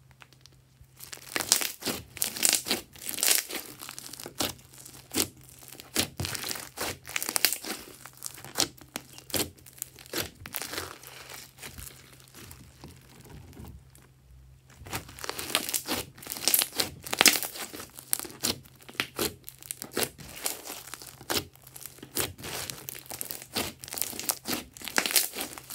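Sticky crunchy slime packed with foam beads being stretched and squeezed by hand: dense, irregular crackling and popping. It starts after about a second of quiet and breaks off briefly around the middle.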